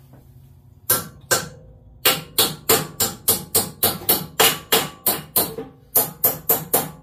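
Rapid series of sharp knocks: two single knocks about a second in, then a steady run of about three a second.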